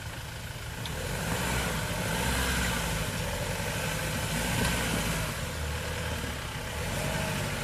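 Iveco EarthCruiser 4x4 camper truck's diesel engine running at low revs as the truck crawls over rocks, growing louder about a second in and then holding steady.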